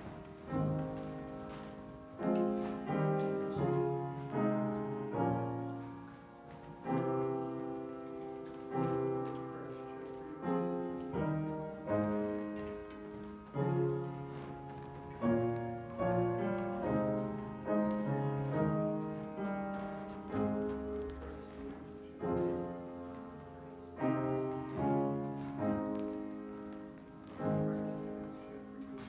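Piano playing a slow piece in chords, each chord struck about every one to two seconds and left to ring and fade.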